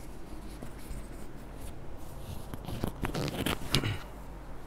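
Clip-on lavalier microphone being handled and fastened to a T-shirt: scratchy rubbing and a few sharp clicks right at the mic, busiest from about two and a half to four seconds in, over a low steady hum.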